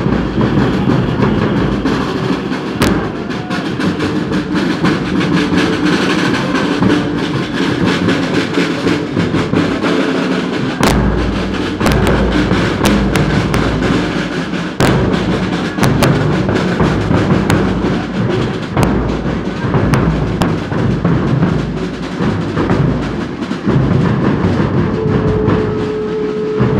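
A procession band party's drums: a big bass drum and side drums beating continuously, with heavy low thumps and many sharp strokes. A single held note comes in near the end.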